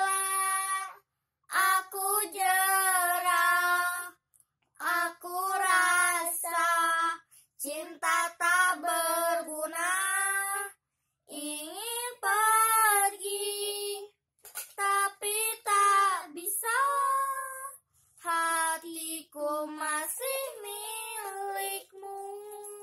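Two young girls singing a slow pop love song together without accompaniment, in phrases of a few seconds broken by short pauses.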